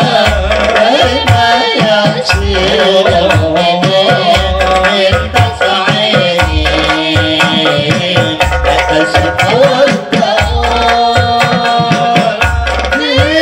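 Men singing together to Indonesian frame drums (rebana) and jingling tambourines, amplified through loudspeakers, with a deep drum stroke about once a second.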